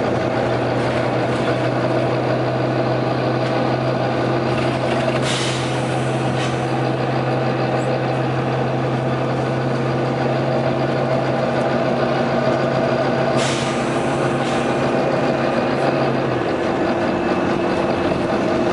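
Volvo B9TL double-decker bus's diesel engine running steadily, with two short sharp hisses of compressed air from its pneumatic system, about eight seconds apart. The low engine note shifts near the end.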